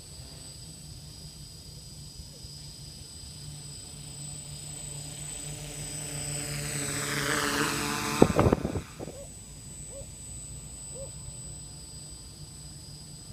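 Quadcopter's motors and propellers buzzing, growing louder as it flies in close overhead and fading as it moves away. About eight seconds in, a brief loud buffeting on the microphone from the rotor downwash as it passes over.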